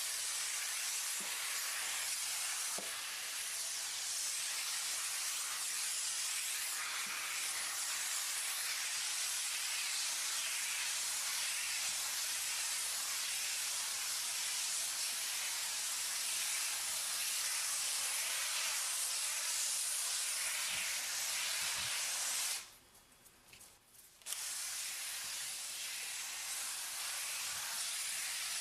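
Monster cleaner jetting steam onto floor tiles with a steady hiss. About three-quarters of the way through, the hiss cuts off abruptly for a second or two, then starts again.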